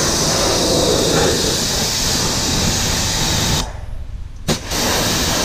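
Kranzle 1122TST pressure washer spraying a steady, loud hissing jet of water. It stops suddenly about three and a half seconds in as the trigger is let go, gives one short spurt, then starts spraying again near the end.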